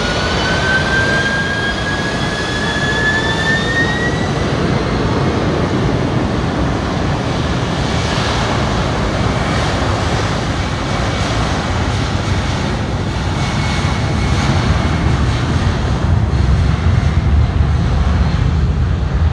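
Boeing 767-300ER jet engines spooling up: a rising whine over the first few seconds, then a steady, loud roar whose deep rumble builds toward the end.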